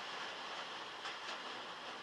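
Heavy rain drumming steadily on a metal roof, heard from inside a shed, with a couple of sharper drop ticks about a second in.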